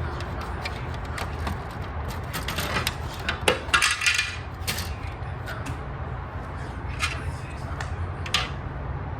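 Hard plastic toy garage parts clicking and knocking together as they are handled and fitted, with a cluster of louder rattling knocks about three and a half seconds in, over a steady low hum.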